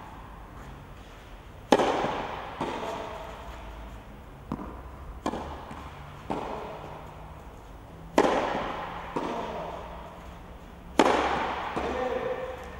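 Tennis ball struck by rackets and bouncing on a clay court during a rally: sharp pops every one to three seconds, each followed by an echo under the court's roof.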